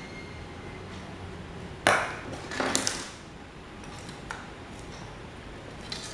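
A hard object strikes a surface about two seconds in and rings briefly, followed by a short clatter of knocks and scraping, then a couple of light taps: tools or metal parts being handled and set down.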